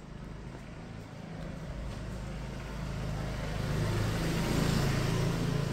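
A motor vehicle's engine running as it approaches, growing steadily louder with a low hum and road noise, loudest about four to five seconds in.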